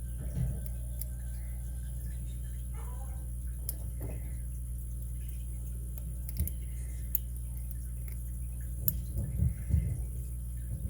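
Faint ticks and scrapes of a lock pick working the pin stacks of a Master Lock 930/950 padlock, with a few louder handling bumps near the end, over a steady low electrical hum.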